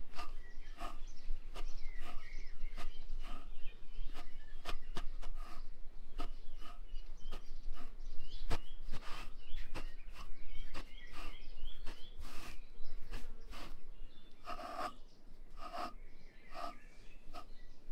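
Raw sheep's wool pulled through the long steel tines of a hand wool comb in repeated short strokes, about one or two a second, with a few louder strokes near the end. Birds chirp in the middle.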